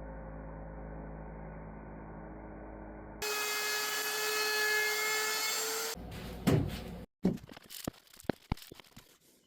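A steady machine hum, then a woodworking power tool running steadily for about three seconds, then a quick run of sharp wooden knocks and taps.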